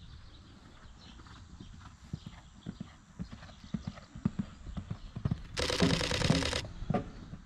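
Horse cantering on a sand arena: hoofbeats come in from about two seconds in, about three a second and getting louder as it nears. Near the end there is a loud pitched call about a second long, then one more thud.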